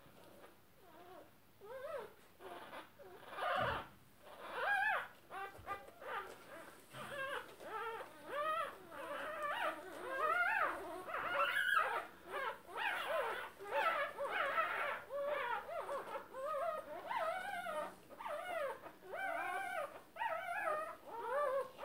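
Newborn Tibetan Terrier puppies squeaking and whimpering: a near-continuous string of short, high squeals that rise and fall in pitch, often overlapping. They get louder and busier after about two seconds.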